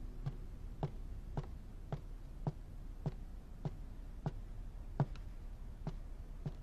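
Evenly paced footsteps, a little under two steps a second, each a short soft knock.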